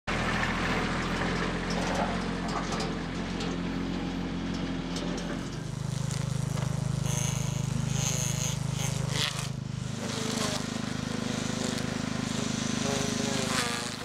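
Small engines running steadily in short clips. The engine note changes about five and a half seconds in and again near ten seconds.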